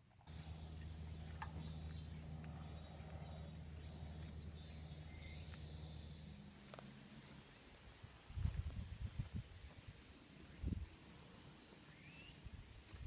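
Insects chirring: a pulsing high chirp for the first six seconds or so, then a steady high buzz. A low hum runs under the first part, and a few dull thumps come in the second half.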